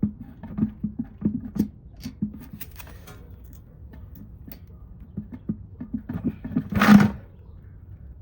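Hand tools working on a car's brake caliper: runs of quick, low clicks and knocks as the second caliper bolt is screwed in and tightened, then one short, loud, rushing noise about seven seconds in.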